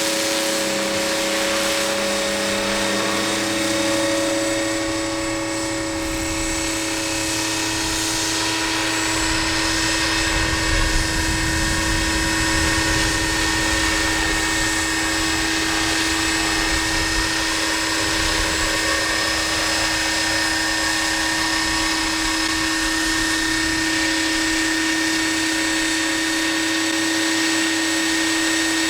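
Scale RC model of an Aérospatiale SA 315B Lama helicopter in flight: its rotor and drivetrain give a steady whine of unchanging pitch over a rushing noise. The whine holds at one pitch, with a deeper rumble swelling through the middle.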